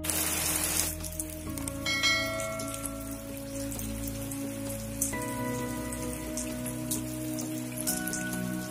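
Rain falling steadily, with scattered sharp drop clicks, under soft background music of sustained chords that change every few seconds. There is a short burst of hiss in the first second.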